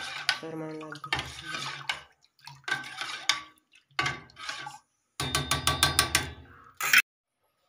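Metal spoon stirring spiced water in a steel bowl, scraping and clinking against its sides as the liquid swirls, with a quick run of ringing clinks about five to seven seconds in.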